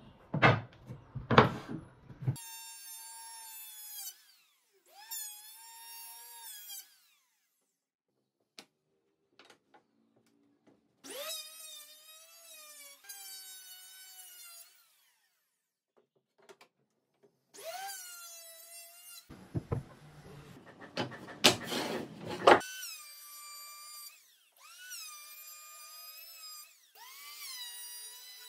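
Handheld power tools working pallet wood in short runs, a circular saw and an electric planer: each run starts with a rising motor whine that then holds steady, and cuts off between passes. Loud sharp knocks of wood near the start and again about two-thirds of the way through.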